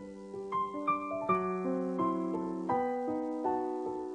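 Background music: a gentle piano piece, single notes struck one after another over held bass notes that change every second or so.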